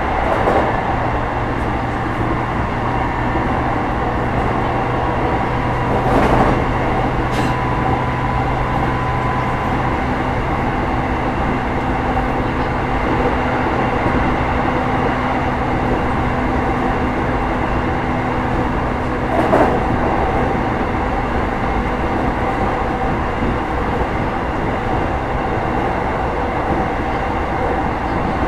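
JR East E233-5000 series electric train running at steady speed, heard from inside a car: a continuous rumble of wheels on rail with a few steady motor tones. A few brief knocks come through, the loudest about 6 s and 20 s in.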